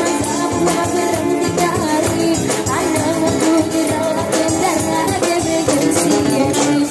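Live joget dance music from a street band: a drum kit keeping a steady beat, an acoustic guitar and a shaken tambourine, with a woman singing through small amplifiers.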